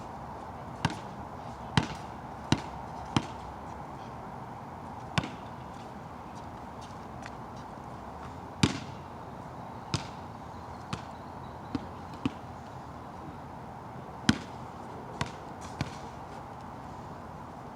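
A basketball bouncing and striking during a game on a wet court: about a dozen sharp, irregularly spaced bangs over a steady hiss of rain.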